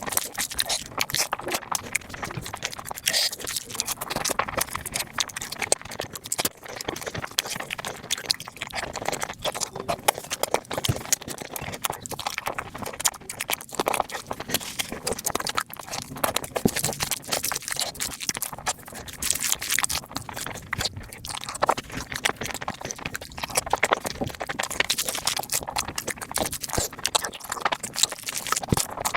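Close-miked mukbang eating sounds: fast, continuous chewing and mouth clicks as people speed-eat.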